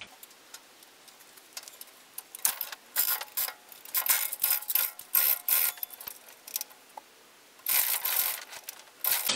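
Metal ratchet on the chain lifting gear clicking in quick bursts as it is worked, with a longer rasping run near the end, while the chain is tensioned or eased to lower a heavy milling machine body.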